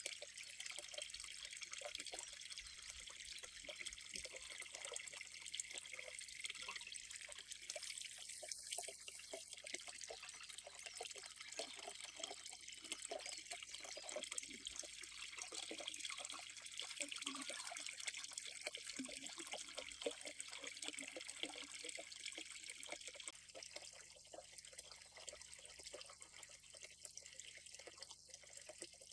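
Water trickling and dripping into a garden pond: a steady light splash with many small, irregular drips.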